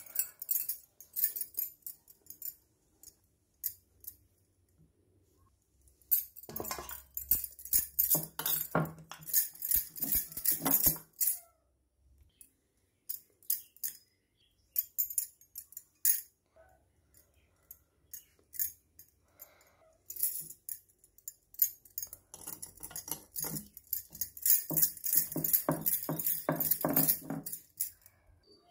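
Quick, irregular jingling and clinking, like small metal or glass pieces shaken together, coming in two long bursts: one about six to eleven seconds in and another from about twenty seconds to near the end. Scattered single clicks fall in between, while dough is kneaded and rolled out with a wooden rolling pin on a stone counter.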